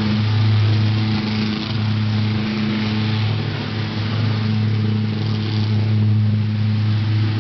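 Propane-fuelled Lockwood valveless pulse jet engine running steadily: a loud low buzzing drone held at one steady pitch, with a rushing hiss over it.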